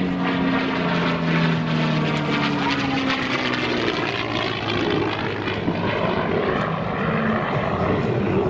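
P-51 Mustang's Packard Merlin V-12 engine and propeller droning as the fighter banks overhead. The engine note falls slowly in pitch over the first few seconds as it passes and moves away.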